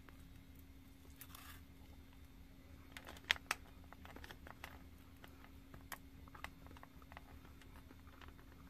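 Quiet eating sounds: chewing fried chicken karaage, with soft clicks and crinkles from a plastic fork and clear plastic food container, including a couple of sharper clicks about three seconds in. A faint steady hum lies underneath.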